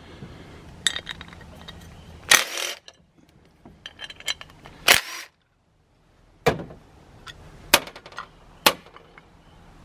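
Metal parts of a Leslie RS5T locomotive air horn (bell and power chamber) being handled and taken apart: about half a dozen sharp metallic knocks and clinks spread out, with small clicks in between.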